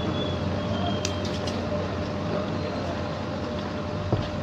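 Steady machine hum with a faint held tone, a few light clicks about a second in and a short knock near the end.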